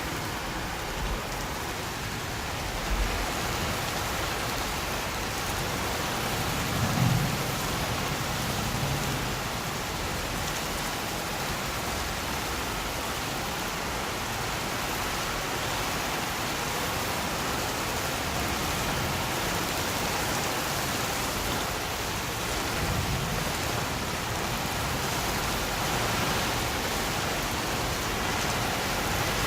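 Thunderstorm: steady rain with low rumbles of thunder, one swelling about a quarter of the way in and a softer one about three quarters through.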